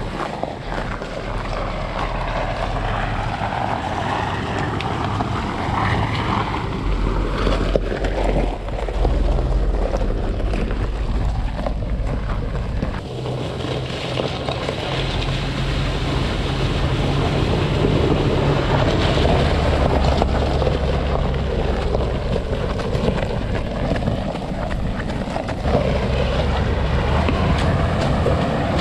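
Toyota Sequoia engine running as the SUV drives through a creek bed, over a continuous wash of rushing, splashing water. The engine note steps up and down several times with the throttle and gets louder about a third of the way in and again past the middle.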